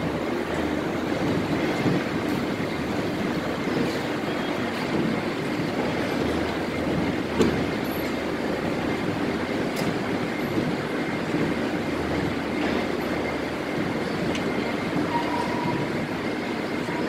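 Double-helical gears of an open rolling-mill gearbox running steadily, a dense mechanical hum of meshing teeth with a faint high whine. One sharp knock about halfway through.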